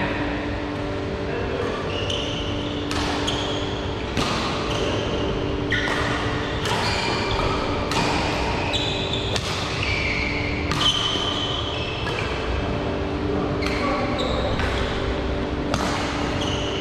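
Badminton rackets striking a shuttlecock in a rally, about one sharp hit every second or so, with sports shoes squeaking on the court floor, echoing in a large hall.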